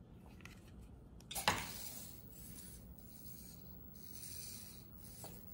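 Petoi Bittle robot dog's small leg servos moving as it rises from lying to standing, a faint rasping rustle, with one sharp clack about a second and a half in.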